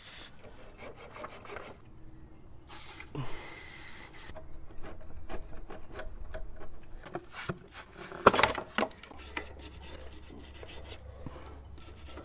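Scratchy rubbing of a small wire brush scrubbing caked grass and dirt inside a lawn mower deck, in irregular strokes, with one louder clatter about eight seconds in.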